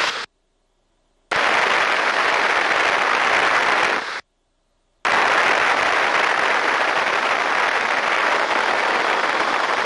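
Steady rushing cockpit noise of a T-6 Texan trainer in flight, wind and engine picked up by the intercom headset microphone. It cuts in and out abruptly as the voice-operated mic gate opens and closes: dead silence for about a second, about three seconds of noise, a second's gap, then noise again.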